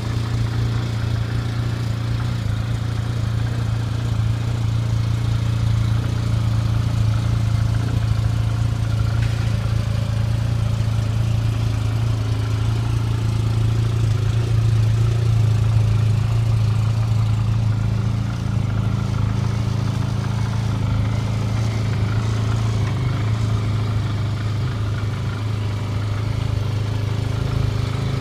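2009 Arctic Cat Z1 snowmobile's four-stroke three-cylinder engine idling steadily.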